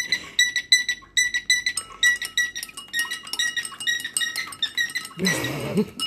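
A metal teaspoon stirred against the sides of a glass tumbler, quick ringing clinks about five a second, while a cockatiel imitates the clinking with whistled chirps from about two seconds in. Near the end a short rough, noisy sound.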